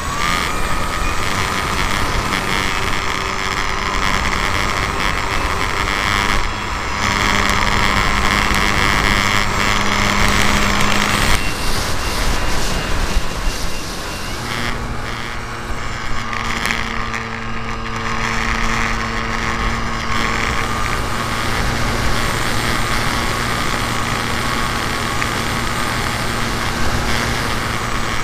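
RC Cessna 182 model's motor and propeller running, heard from its wing-mounted camera with wind rushing over the microphone. The pitch shifts as the throttle changes, about 11 seconds in and again a few seconds later.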